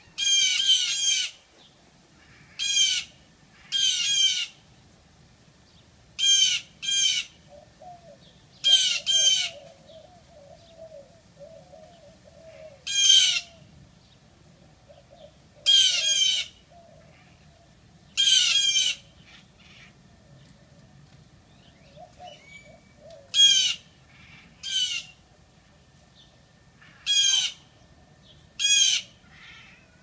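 Blue jays giving harsh, raspy scolding calls, about fourteen in all, singly and in quick pairs every second or few: mobbing alarm calls aimed at a cat below them.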